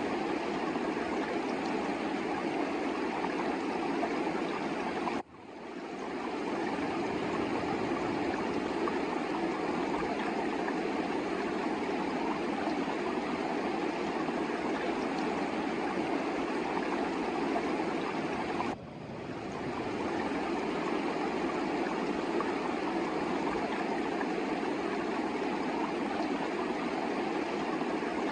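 Fast-flowing mountain river rushing steadily over rocks. Twice the sound drops away suddenly and swells back within a second or so.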